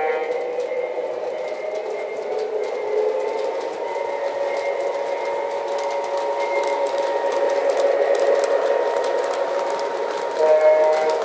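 Lionel O-gauge Rock Island Rocket train with two E6 diesel locomotives running on the track: a steady rumble of motors and wheels with a faint steady whine, growing louder as the train approaches and passes close by. About ten and a half seconds in, a held chord of tones starts.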